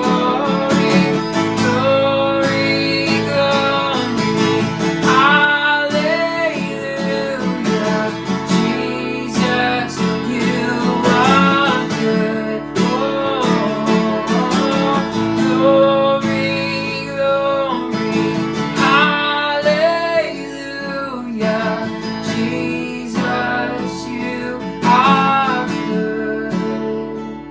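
Worship song played on a strummed acoustic guitar, with a melody line gliding in pitch over the steady chords.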